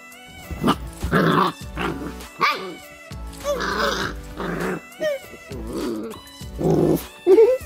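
Labrador puppy play-growling at a hand in a string of short bursts, the loudest near the end, over background music.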